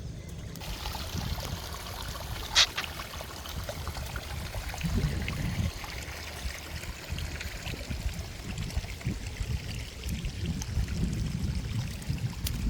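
Water trickling and pouring steadily, with a low rumble underneath and one sharp click about two and a half seconds in.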